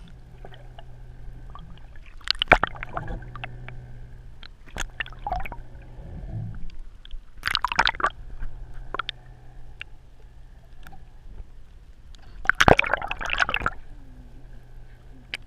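Water sloshing and splashing in irregular bursts, loudest about two and a half, eight and thirteen seconds in, over a low steady hum.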